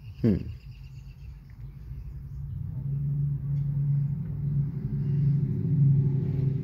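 A brief sharp falling swoop about a quarter second in, then a low, steady, engine-like hum that grows louder toward the end.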